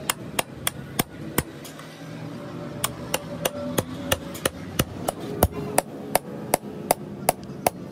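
Hammer blows struck in a steady rhythm, about three a second. After the first five blows there is a pause of about a second and a half, then the hammering resumes and goes on.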